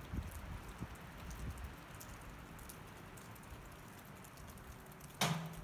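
Snowstorm: a steady hiss of wind and falling snow with faint scattered ticks, and gusts rumbling on the microphone in the first two seconds. A sudden short loud sound with a brief low tone comes about five seconds in.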